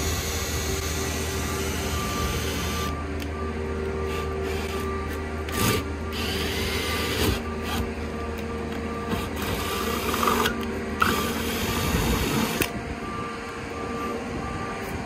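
Cordless drill running with a 1/2-inch cobalt bit, boring bolt holes through a boat's fiberglass deck and gel coat. The motor's whine runs steadily, with a few sharp knocks along the way.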